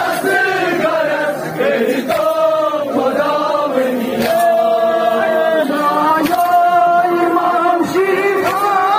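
A group of men chanting a Kashmiri noha (mourning lament) in unison, with long held notes, led by reciters through a megaphone loudspeaker. A sharp slap about every two seconds comes from hands beating on chests in matam.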